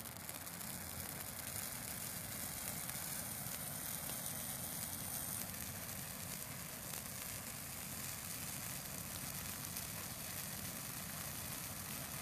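A dried-out Christmas tree burning, its needles crackling densely over a steady rush of flame. The fire builds over the first second or so, then holds.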